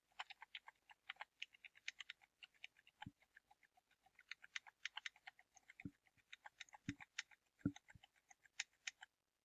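Computer keyboard key tapped over and over, the M key pressed once per marker: a quick, faint run of clicks, several a second, with a few duller knocks among them.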